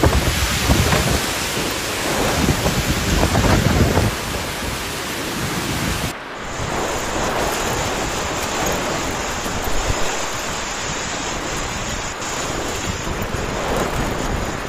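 Storm wind and torrential rain rushing loudly, with gusts buffeting the microphone. The sound changes abruptly about six seconds in as one storm recording cuts to another.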